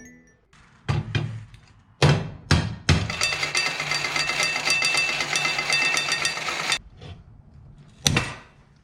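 A few sharp knocks, then an old wind-up mechanical fire alarm bell rings with rapid hammer strikes for about four seconds and cuts off suddenly. One more knock follows near the end.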